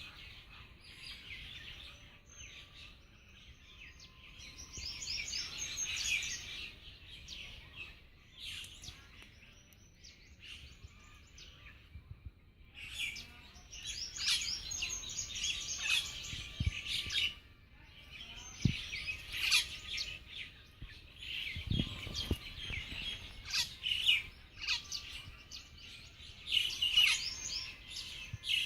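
Birds chirping and twittering in a busy, overlapping chorus of high, quick chirps, swelling into louder clusters every few seconds.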